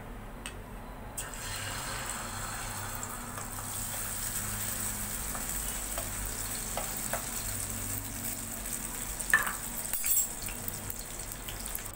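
Beaten egg hitting hot oil in a pan, breaking into a sizzle about a second in, then frying with a steady sizzle while a spoon stirs it, with a few light clicks of the spoon against the pan.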